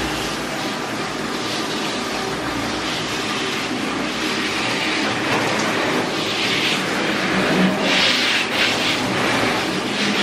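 Water spraying from a handheld bath sprayer onto a dog's wet coat in a stainless steel tub: a steady hiss that swells and brightens a few times as the spray moves over the head and neck.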